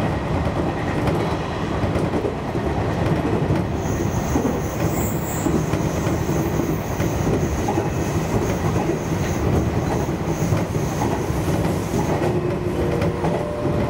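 JR Kyushu 813 series electric train running, heard from inside the cab: a steady rumble of wheels on the rails. From about four seconds in until about twelve seconds, a faint high wheel squeal rides on top as the train takes a curve.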